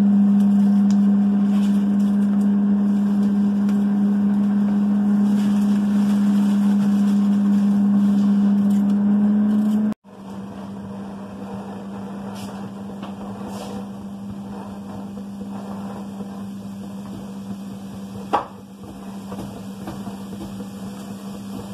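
Steady hum from a running kitchen appliance. It drops suddenly about halfway through, then carries on more quietly, with a single sharp click near the end.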